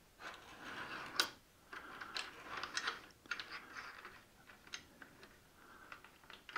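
Small clicks, scrapes and rattles of metal hardware being fitted into an aluminum miter gauge fence's T-slot: a clip's nut slid along the slot and a plastic knob handled, with the wooden sacrificial fence shifted against it. One sharp click about a second in is the loudest.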